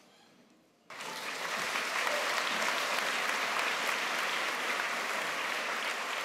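Large audience applauding: a dense, steady clapping that comes in suddenly about a second in, after a moment of near silence.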